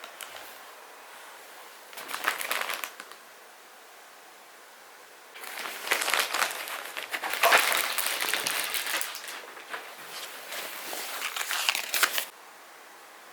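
Crinkling and crackling of handled material: a short burst about two seconds in, then a longer, busier stretch from about five seconds that stops abruptly near the end.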